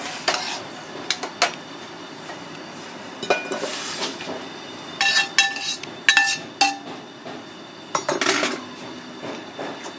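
Metal spoon clinking and scraping in a stainless steel saucepan, and the pan knocking against a skillet as its herbs are tipped in: a string of sharp metal clinks, several with a short ringing tone, busiest around the middle.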